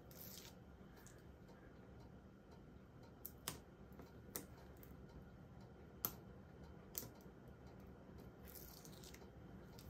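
Faint paper handling from hands pressing foam strips and a cardstock die-cut onto a mat: soft rustles near the start and the end, and about five small sharp clicks in the middle.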